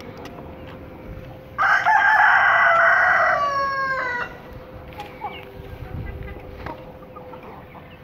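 Rooster crowing once, loud, about two and a half seconds long and dropping in pitch at the end. A few soft hen clucks follow, over a faint steady hum.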